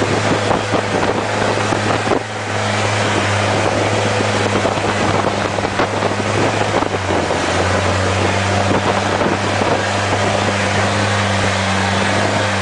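Long-tail boat's engine running at a steady drone, its pitch dropping slightly about seven seconds in, under a steady rush of wind on the microphone and water past the hull.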